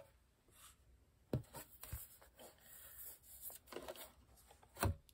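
Light handling noise of plastic cutting plates and paper being moved and rubbed, with two short knocks, about a second and a half in and near the end.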